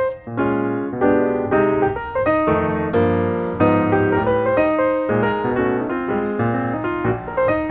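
Background piano music: a quick melody of short notes over a lower bass line.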